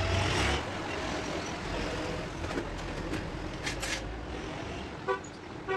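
Steady background noise like road traffic, with two short pitched beeps near the end.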